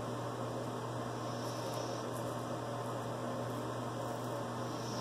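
Steady low hum with an even hiss, the sound of a running fan or ventilation in a small room.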